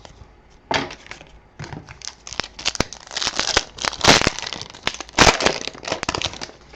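A trading card pack wrapper being torn open and crumpled: a run of crinkling rips and crackles, loudest about four and five seconds in.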